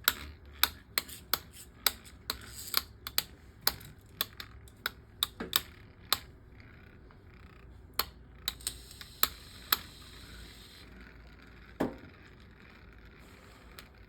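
Two Beyblade Micros spinning tops, Kerbeus and Roctivore, battling in a small plastic stadium: sharp, irregular plastic clicks as they strike each other and the stadium wall. The clicks come several a second at first and thin out over the second half.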